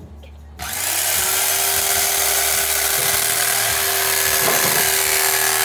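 Electric carving knife switched on about half a second in, its motor spinning up and then running steadily as the reciprocating blades cut through a roast turkey.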